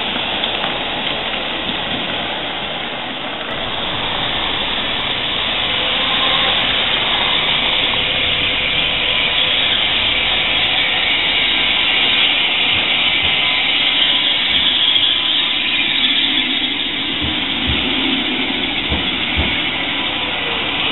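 Steady rumble and hiss of a tram rolling on street rails, growing louder through the middle as a PCC tram approaches and runs past close by near the end.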